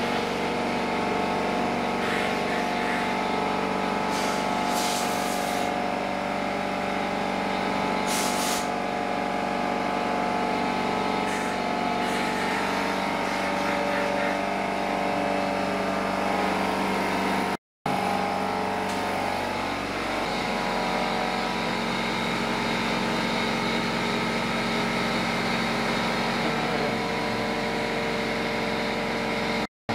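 Compressed air blown into drilled concrete anchor holes: short hissing blasts over a steady machine hum from the running equipment. After a break about 18 s in, the hum gives way to a different steady machine drone.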